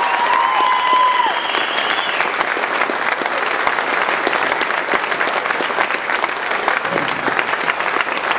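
Crowd applauding steadily, many hands clapping, with a few held cheering voices over it during the first two seconds.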